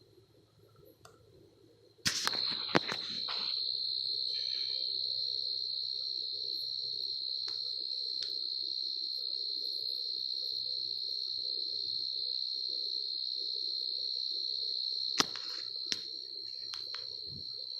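Steady high-pitched trilling of crickets, faint at first and then much louder from about two seconds in. A few sharp clicks and knocks come around that jump and again near the end.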